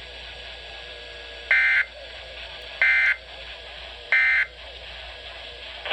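EAS end-of-message tones from NOAA Weather Radio: three short bursts of buzzing digital data tones, each about a third of a second long and a little over a second apart, over steady radio hiss. They signal the end of the alert broadcast.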